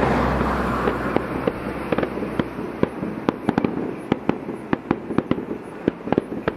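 Fireworks display: a dense rushing burst fades over the first couple of seconds, then many sharp crackling pops go off irregularly.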